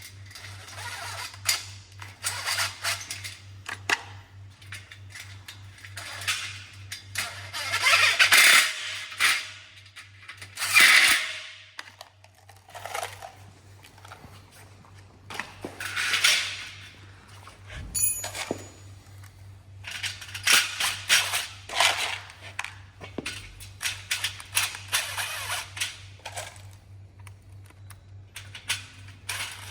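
Irregular clicks, clinks and scraping of metal greenhouse frame parts and fittings being handled and fastened, over a faint steady low hum.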